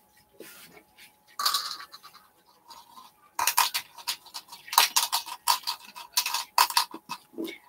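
Small hard pieces rattling and clicking inside a plastic bottle as it is handled and shaken. The clicks are sparse at first and come thick and fast from about three seconds in.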